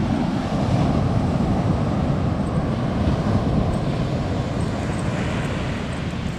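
Steady low rumble of wind buffeting the microphone over the wash of breaking ocean surf.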